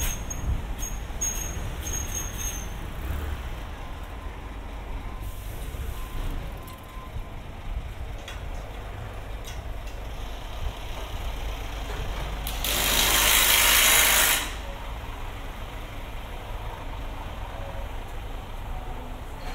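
Steady low rumble of street traffic, with a heavy vehicle's air brakes letting out one loud hiss of about two seconds, roughly two-thirds of the way through.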